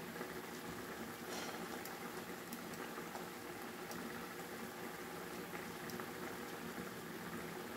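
Minced meat (qeema) and whole tomatoes simmering in water in a frying pan: a steady bubbling, with a few faint clicks.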